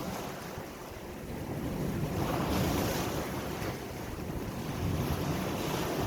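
Ocean waves washing ashore, one swelling wash about two seconds in and another near the end, with wind buffeting the microphone.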